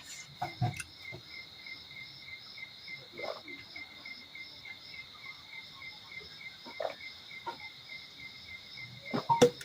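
Insects chirping steadily in a high, pulsing rhythm of about two to three pulses a second. A few short smacking and clicking sounds of eating come and go, the loudest near the start and just before the end.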